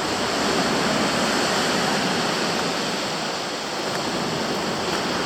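Steady rushing noise of heavy storm surf, swelling slightly and easing again.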